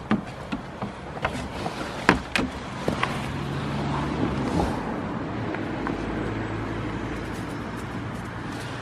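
A series of sharp hoof taps from a goat kid on the wooden roof of a doghouse, then from about three seconds in a steady low engine hum, as of a motor vehicle running.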